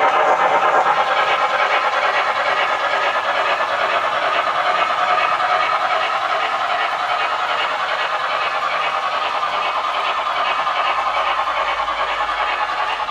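Sound decoder of an HO-scale MTH GS4 4-8-4 steam locomotive model playing rapid, steady steam chuffing through its small speaker as the model runs, fading slightly toward the end.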